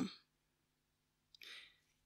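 Faint in-breath by the narrator about one and a half seconds in, just after a small mouth click, in an otherwise near-silent pause between spoken sentences.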